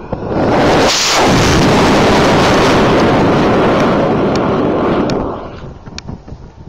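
High-power rocket's solid motor firing at liftoff: a loud rushing noise that starts suddenly just after the start, holds for about five seconds, then fades away as the rocket climbs.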